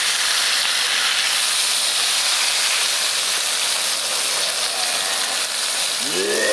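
Breaded walleye fillets sizzling steadily in hot oil in a frying pan. A brief voice comes near the end.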